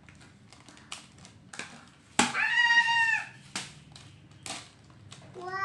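Plastic candy wrapper being handled and torn open, a run of short sharp crinkles and clicks. About two seconds in comes a loud, high-pitched drawn-out call lasting about a second, and a lower call starts near the end.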